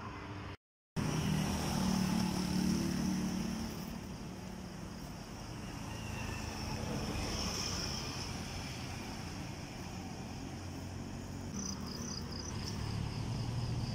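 Road traffic: cars running along a street, a steady hum of engines and tyres, loudest for the first few seconds.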